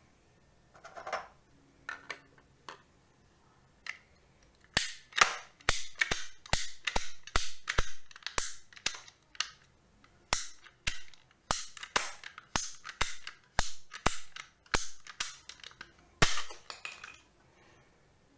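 Ratchet-type plastic pipe cutter cutting through a CPVC pipe: as the handle is squeezed step by step, the pawl clicks into each notch of the gear, giving a run of sharp clicks about two a second. The clicks start about five seconds in and stop shortly before the end.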